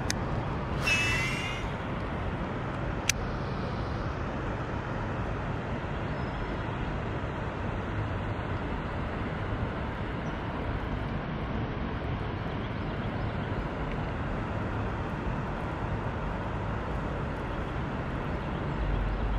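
Steady outdoor background noise with a low rumble underneath. A brief high chirp comes about a second in, and a single sharp click about three seconds in.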